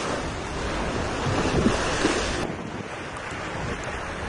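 Sea water rushing and splashing along a sailing yacht's hull, with wind buffeting the microphone. About halfway through, the bright hiss of the water drops away suddenly, leaving mostly low wind rumble.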